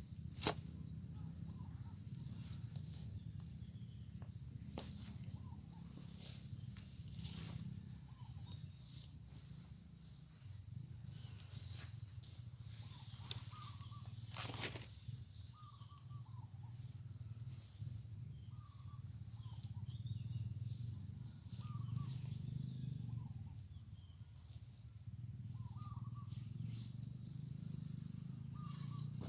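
Outdoor farm ambience: a steady high insect drone with short bird chirps every second or two, a few sharp knocks, and a low rumble underneath.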